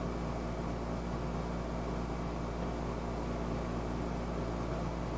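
Room tone: a steady low hum with a faint, even hiss behind it.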